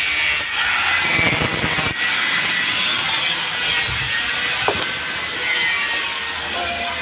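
Steady rasping, sawing-like noise on wood, with a strong high hiss running under it throughout.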